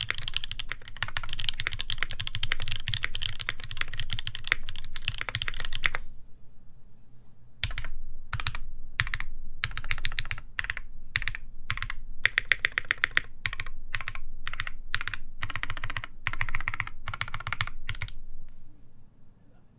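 Typing on an Iron180 mechanical keyboard with lubed Moss switches, a full brass plate and GMK keycaps. Rapid, continuous keystrokes for about six seconds, a short pause, then shorter bursts of keystrokes that stop shortly before the end.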